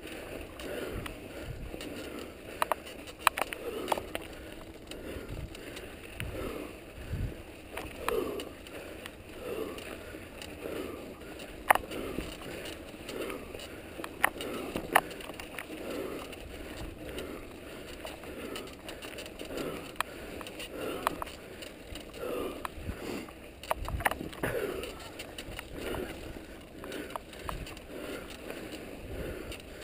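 Mountain bike riding over a snowy, rocky trail: tyres crunching through snow and the bike rattling, with a rhythmic swish about once a second and scattered sharp knocks as it hits bumps.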